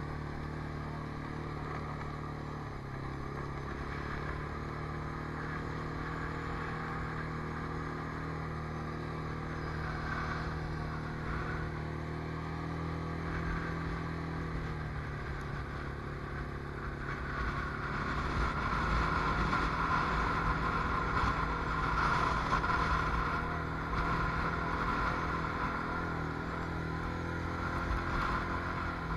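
Can-Am Outlander Max ATV engine running as it is ridden through soft sand, its note shifting with the throttle. It gets louder about two-thirds of the way through.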